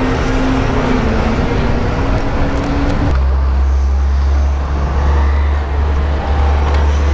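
Road traffic heard from a bicycle: a motor vehicle's engine runs with a steady note that rises slightly over the first three seconds. Then the higher sound falls away and a steady deep rumble remains.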